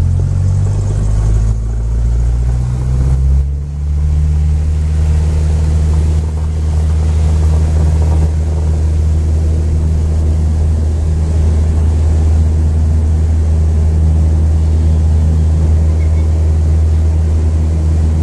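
Single-engine light propeller plane's engine and propeller droning loudly, heard from inside the cabin. The engine note shifts about three to four seconds in, then holds steady.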